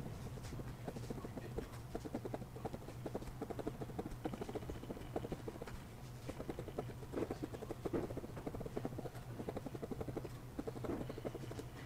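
Fine-tipped Koh-I-Noor technical pen nib scratching and ticking on paper as short hatching strokes are inked, several strokes a second in uneven flurries. A steady low hum runs underneath.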